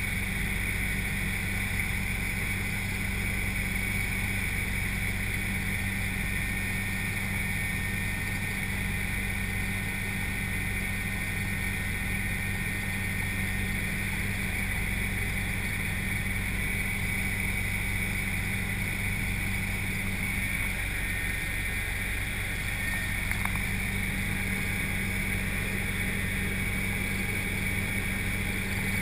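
Helicopter in flight heard from inside the cabin: the steady drone of the rotor and engine, with a steady high whine over a low hum.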